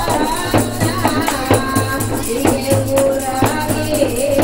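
Women singing to a beat of hand frame drums and shaken tambourines, the drums struck about twice a second; the voices hold one long note in the second half.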